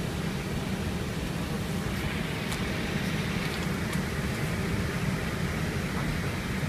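Steady low rumble and hiss inside an Airbus A319 cockpit as the airliner taxis along the runway, with a couple of faint ticks about two and a half and three and a half seconds in.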